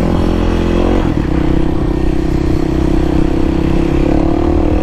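Kawasaki KLX300SM's single-cylinder engine running under way, heard from on the bike. The note breaks briefly about a second in, as at a gear change, then holds a steady pitch and rises slightly near the end.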